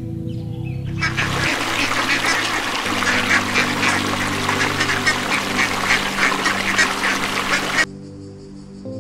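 A flock of mallard ducks quacking, many calls overlapping, over steady background music. The quacking starts about a second in and cuts off abruptly near the end, leaving only the music.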